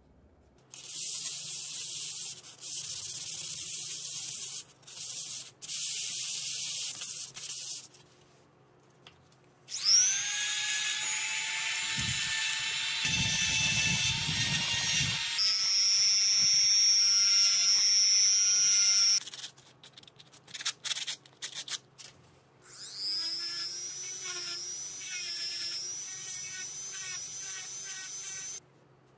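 Handheld rotary tool spinning up with a rising whine and running at high speed while a small metal part from the drill is held against the wheel in its chuck, with rough grinding contact noise during the first run. It runs twice: from about ten seconds in for about nine seconds, and again near the end. Before that come several bursts of hissy scratching rubbing.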